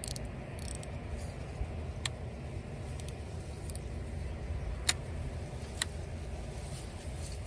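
Small sharp clicks of a baitcasting reel being handled and adjusted, about one a second, over a steady low rumble.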